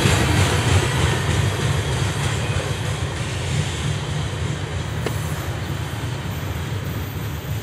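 Loaded coal train of open-top hopper cars passing and receding: a steady rumble of steel wheels on the rails that fades gradually as the rear of the train rolls away.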